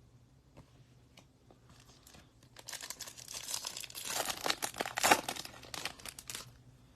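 A trading-card pack's foil wrapper being torn open and crinkled by hand: a few faint ticks, then about two and a half seconds in a run of crackling that lasts around four seconds.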